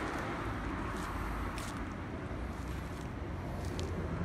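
Kubota Midy TMA21 mini tiller's 2.2 hp engine running steadily, its note rising slightly near the end.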